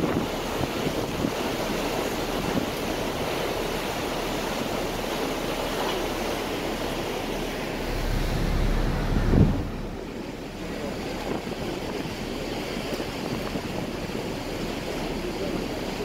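Wind buffeting the microphone and water rushing past on a ferry's open deck: a steady rushing noise, with one brief low thump about nine seconds in, after which the noise drops a little.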